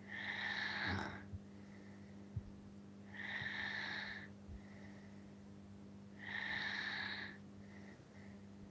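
A man snoring in his sleep, heard through a Skype call: three loud snores about three seconds apart, with fainter breaths between them.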